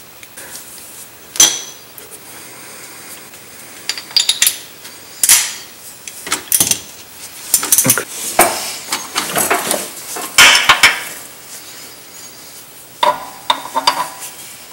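Metal tools clinking, knocking and scraping in irregular bursts as a strap-type oil filter wrench, driven by a half-inch socket and ratchet, is fitted around a spin-on oil filter under a car.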